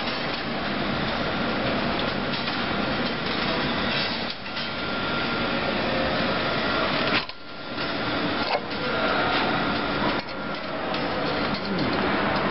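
Machinery running steadily in a metalworking shop, a dense mechanical noise with brief dips about 4, 7 and 10 seconds in.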